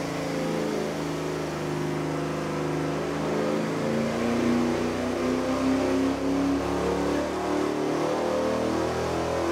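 Carbureted engine fitted with a double-pumper (mechanical-secondary) carburetor, running under full load on an engine dyno and climbing steadily in revs through a power pull.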